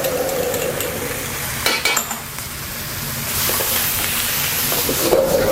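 Vegetables and sauce stir-frying in a hot pan with chili oil and oyster sauce: a steady sizzle with a few clinks of a utensil against the pan about two seconds in. The sizzle gets louder after the middle, over a steady low hum.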